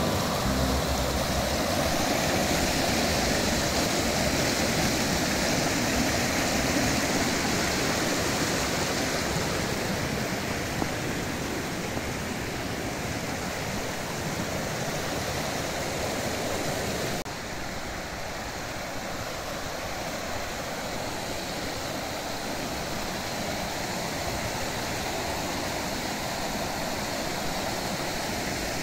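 Steady rush of a mountain stream's flowing water. About seventeen seconds in it shifts abruptly to a slightly quieter, duller rush.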